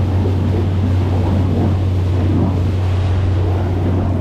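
Motorboat running underway: a steady low engine drone under a rush of wind and water.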